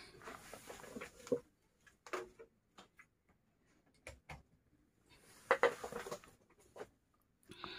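Light clatter and rustling of hard objects being handled on a workbench, in a few short spells with sharp clicks between them.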